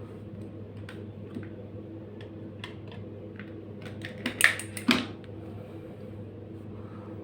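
Steady electrical hum of a ceiling fan running on UPS/inverter power, the noise that fans make on an inverter supply. Over it come scattered clicks, and a quick clatter of knocks about four to five seconds in.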